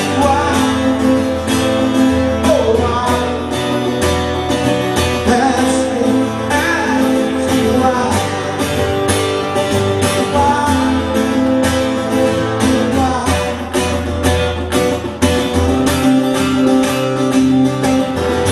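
Band music without lyrics: guitar over a bass line and a steady drum beat.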